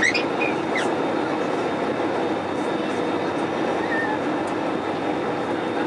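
Steady cabin rush of an Airbus A320-200 on final approach, engine and airflow noise heard from a window seat, with a faint steady hum. A few brief high chirps sound near the start.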